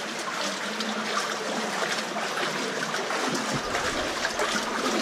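Shallow water flowing and trickling along a narrow rock tunnel, with small splashes as someone wades through it.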